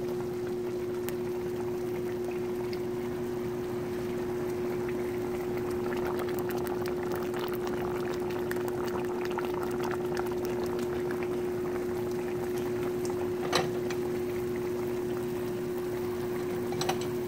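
Rice and red beans, and steak in gravy, simmering in pots on a stove: a steady fine bubbling and crackling, over a steady low hum. Two light clicks come in the second half.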